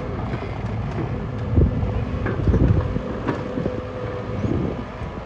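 Diesel engine of heavy earthmoving machinery running steadily, with scattered short knocks and clanks.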